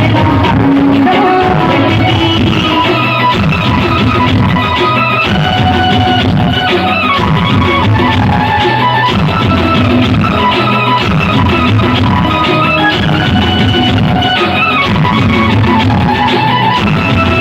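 Loud music with instruments and a steady beat.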